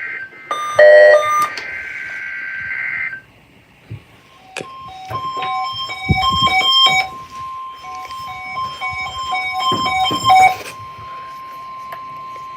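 NOAA Weather Radio test tones: the warbling SAME digital header bursts end about three seconds in, with a short, loud tone burst about a second in. Then the steady 1050 Hz warning alarm tone sounds, with a stepped electronic beeping pattern over it for about six seconds.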